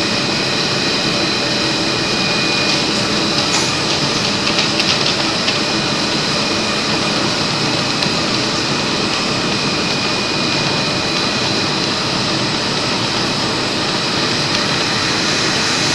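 Polyethylene cling film production machine running: a steady, loud machine noise with constant high-pitched whining tones, and a brief flurry of light clicks about four seconds in.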